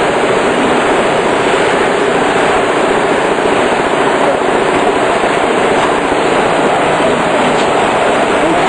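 Loud, steady rush of water churning in a concrete discharge basin as a large pump delivers its flow, with a faint steady tone underneath.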